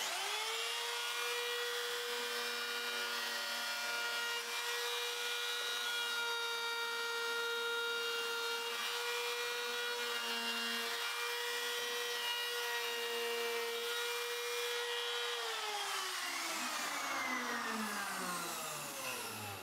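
Handheld trim router starting up and running at a steady high whine as it routes letters into an oak block. About 15 seconds in it is switched off and its pitch falls steadily as the motor winds down.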